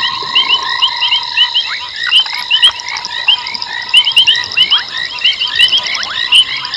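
A night chorus of many frogs: a dense overlap of short, high chirps repeating quickly and continuously, over steady high tones.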